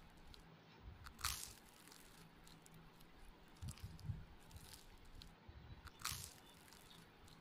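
Quiet eating by hand: fingers squishing rice and potato curry against a steel plate, with soft chewing. Two sharp clicks, about a second in and near the end.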